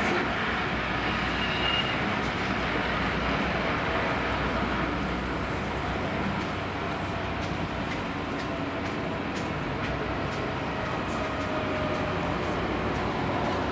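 Munich S-Bahn class 423 electric multiple unit running into the station and past at close range: a steady rumble of wheels on the rails, with a faint electric whine from its traction equipment.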